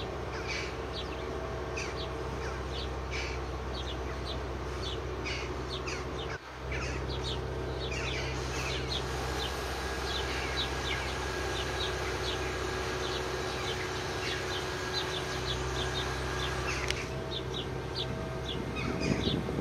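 Small birds chirping: many short, high chirps repeated throughout, over a steady low hum.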